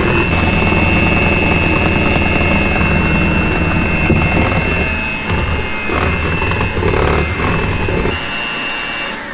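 Electric hand mixer running with its beaters in thick cake batter as buttermilk and flour are beaten in: a steady motor whine over a low hum. Near the end the low hum drops away and the whine rises slightly, then the mixer stops.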